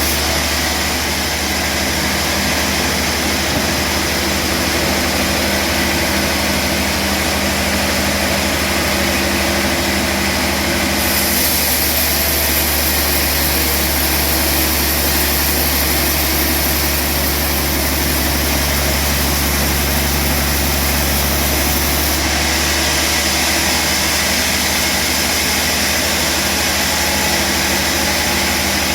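Sawmill machinery running steadily with a constant low hum, a brighter high hiss joining in from about a third of the way through to about three quarters.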